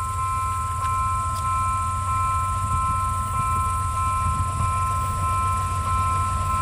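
C36-7i diesel locomotive hauling a freight train as it approaches, a steady low engine rumble. Over it sounds a steady high two-note tone with faint regular pulses.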